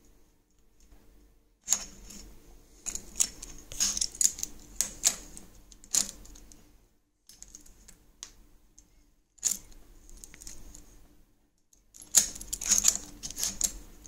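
Clicks and light rattling of aluminium headlamp brackets and rubber stops being handled and fitted onto an e-bike's front fork, in short bursts with pauses between, the busiest burst near the end.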